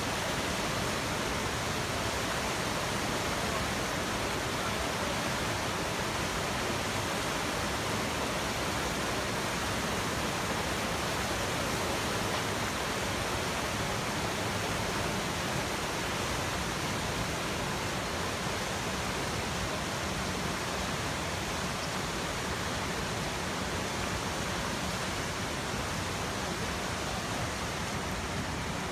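Whitewater river rapid rushing steadily, a dense, even noise of churning water that eases slightly over the last several seconds.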